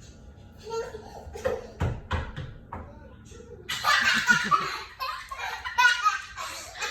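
A young child laughing loudly in quick repeated bursts, starting about halfway in, after a few short, quieter sounds.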